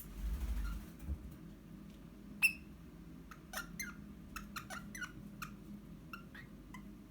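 Eastern rosella giving a scattered series of short, sharp chirps over the last four seconds or so, the loudest about two and a half seconds in. A low rumble comes in the first second, and a faint steady hum runs underneath.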